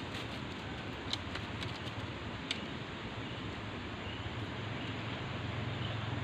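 Steady outdoor background hiss with a low hum that grows louder in the second half, and a few faint ticks.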